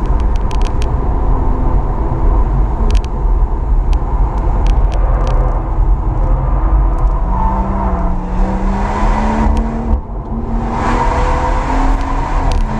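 BMW M140i's turbocharged 3.0-litre straight-six with a JB4 tune and BCS valved exhaust, driven hard on track and heard inside the cabin over heavy tyre and road rumble. The engine note climbs, dips briefly about ten seconds in, then climbs again.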